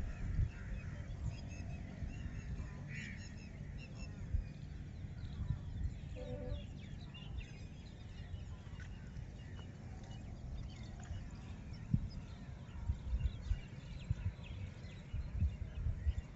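Scattered bird calls and short chirps, with one brief honking call about six seconds in, over a low uneven rumble.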